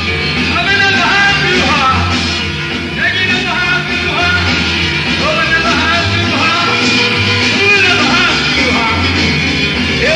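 Live rock-and-roll band music from a concert, played loud and continuous.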